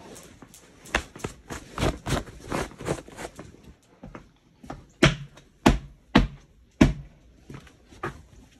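Footsteps and knocks on a porch: a run of sharp taps, then four heavier thuds about half a second apart past the middle.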